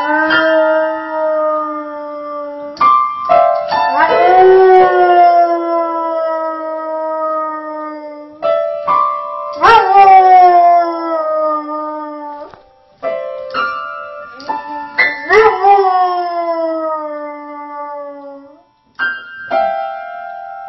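A dog howling along to a piano. Piano chords are struck every few seconds, and the dog answers each one with long, sliding howls that rise and then slowly fall.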